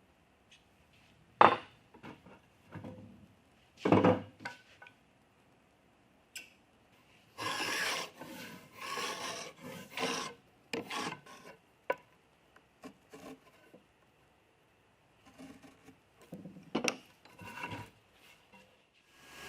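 Wood being worked and handled by hand: two sharp knocks in the first few seconds, then a run of short noisy strokes on wood about halfway through, and scattered light taps and clicks near the end.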